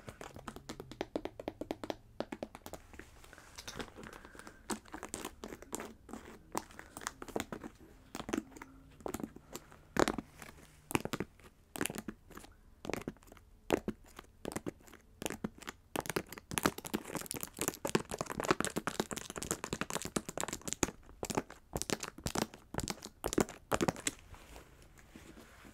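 Long acrylic nails tapping and scratching on a jewelled, gold-trimmed fabric boot: a quick, irregular patter of sharp clicks, with a busier stretch of scratching a little past the middle.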